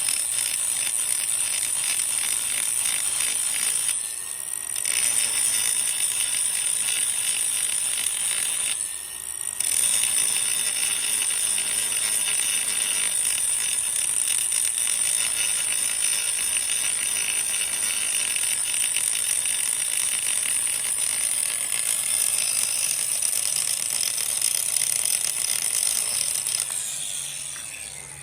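Power grinder grinding down the head of a steel ball-joint rivet on an aluminum control arm, running steadily with a high-pitched whine, easing off briefly about four and nine seconds in, and spinning down near the end.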